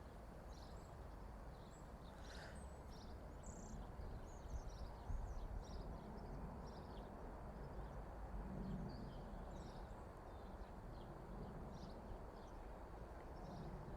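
Small birds chirping and twittering in short, scattered calls over a steady low rumble of road traffic.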